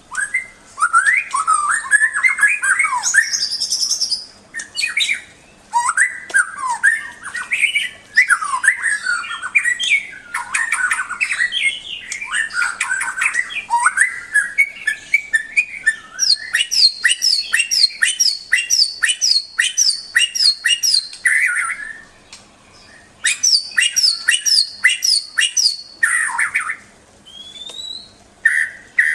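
Murai (Copsychus songbird) singing a loud, varied warbling song. About halfway it switches to a fast series of repeated two-part notes, a couple a second, broken by short pauses.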